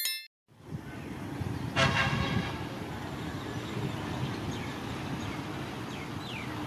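A short bell chime at the very start, then steady outdoor traffic rumble with a brief toot about two seconds in.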